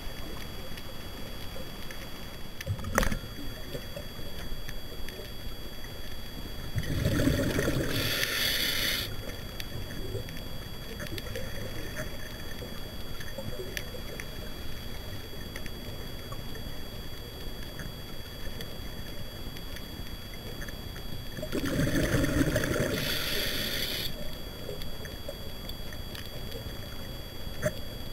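Scuba diver's regulator breathing heard through an underwater camera: two breaths about fourteen seconds apart, each a low bubbling rumble of exhaled bubbles ending in a short hiss. Between them a steady background hiss with a faint high whine, and a single sharp click about three seconds in.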